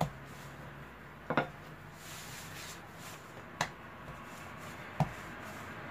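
Wooden rolling pin rolling out dough on a granite counter, with four short, sharp knocks at uneven intervals as the pin or hands bump the stone.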